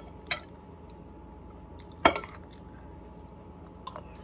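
Metal fork clinking against a plate while twirling noodles: a few short clicks, the loudest a sharp clink about halfway through.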